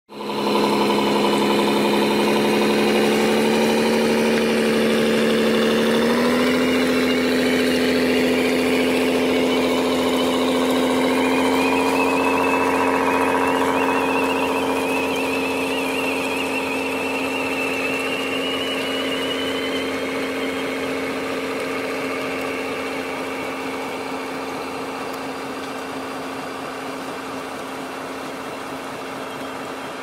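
Radio-controlled tractor-trailer running: a steady engine drone from its sound unit, stepping up in pitch about six seconds in. A high whine rises in pitch midway, then the sound eases off.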